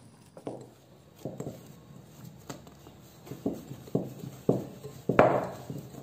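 Pizza dough of flour and fine semolina being kneaded by hand in a glass bowl: a string of dull thuds as it is pressed and turned, about one or two a second, the loudest near the end.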